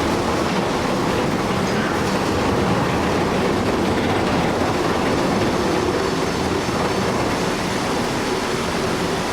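Loud, steady mechanical rumble with a faint underlying hum, starting abruptly and holding at an even level.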